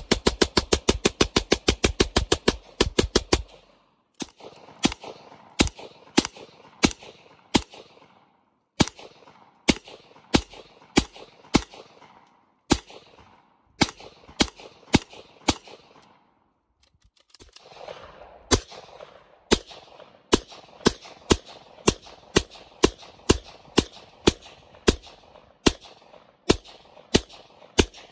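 Intratec TEC-9 9mm semi-automatic pistol being fired outdoors: a very rapid string of shots for the first three seconds, then single shots about a second apart. After a short pause a quicker string follows at about two shots a second. Each shot is followed by a short echo.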